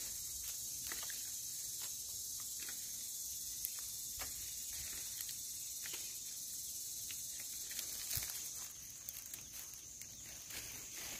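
Steady high-pitched insect buzz from the dry forest, with scattered small snaps and rustles of twigs and leaves as young wild phak wan shoots are picked and handled by hand.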